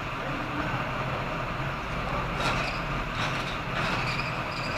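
Steady low rumble of a vehicle engine running, with three short sharp knocks about halfway through.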